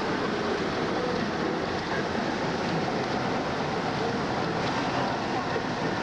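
Steady road and wind noise inside a car's cabin while driving on a freeway, an even rushing hiss with no changes.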